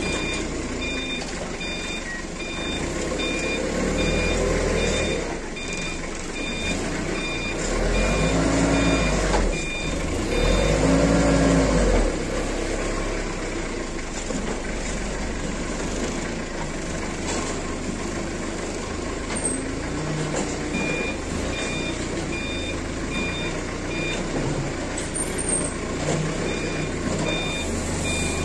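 Forklift engine running, with a steady repeating reversing alarm beeping for the first third and again near the end. The engine revs up and settles three times in the middle, the last two the loudest.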